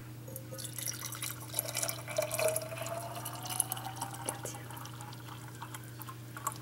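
Thick supersaturated sugar syrup poured from a stainless steel saucepan into a glass jar: a thin stream splashing and trickling, with a tone that rises slowly as the jar fills, easing off after about four seconds.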